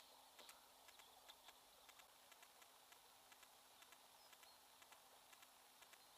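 Near silence: a faint hiss with scattered faint ticks.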